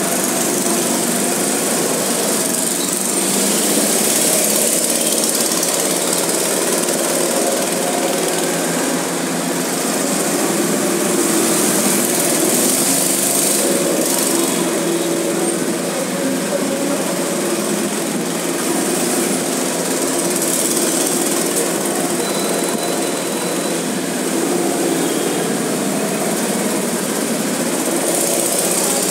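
Small go-kart engines running as several karts lap the track, the sound swelling and easing as they come past and move away.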